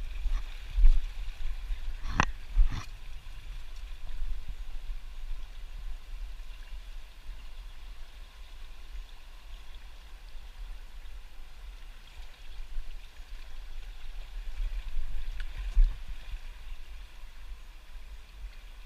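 Fast river current rushing steadily, under low rumbling thumps, with two sharp knocks about two seconds in.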